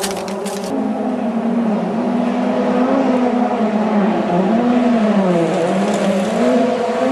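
Ford Fiesta RS WRC rally car's turbocharged four-cylinder engine approaching on a gravel stage, the revs rising and falling through gear changes, with a deeper dip in pitch about four to five seconds in as it comes off the throttle, growing louder as it nears. A few clicks in the first second.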